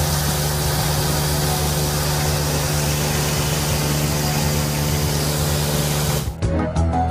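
5-axis CNC bridge saw running and cutting a stone slab under water, a steady machine hum with a strong hiss over it. It cuts off suddenly about six seconds in.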